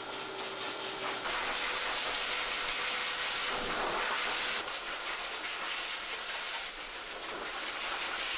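High-velocity pet dryer blowing a steady rush of air through its hose and nozzle, with a faint steady motor whine underneath. The airflow gets louder about a second in.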